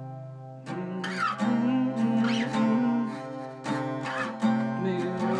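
Acoustic guitar in open F5 tuning (F F C C C C) being strummed: low doubled strings ring under several strummed chords, which start after a brief lull about half a second in.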